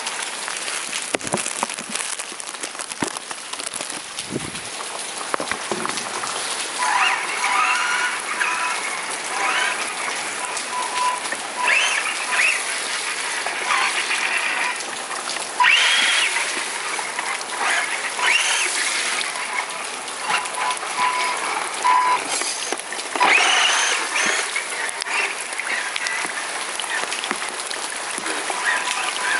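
Steady rain falling on wet tiled ground and puddles, an even hiss. Short higher-pitched sounds come and go over it through the middle stretch.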